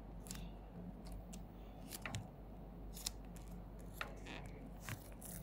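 Faint, irregular clicks and taps of fingers on a phone's touchscreen, about eight or nine in all, over a low steady hum.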